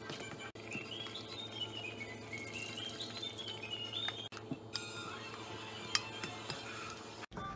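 Background music: a tinkling, chime-like melody of short notes stepping up and down, over a low steady hum, with a sharp knock about six seconds in. The sound drops out briefly three times at edits.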